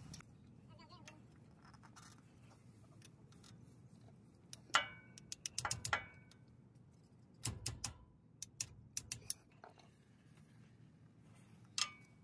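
A hooked metal pry tool scraping and clicking against the front differential's axle seal as the seal is pried out of its bore. The sounds come as several clusters of sharp metallic clicks and short scrapes, with quiet gaps between them.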